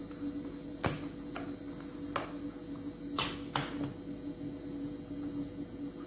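Metal spoon stirring a thick milk, ice cream and flattened-rice mixture in a glass, clinking sharply against the glass about five times, over a steady low hum.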